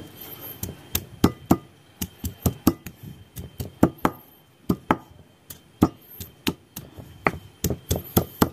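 Stone pestle pounding ginger and garlic in a stone mortar: a run of sharp, uneven knocks, about two or three a second, starting about a second in.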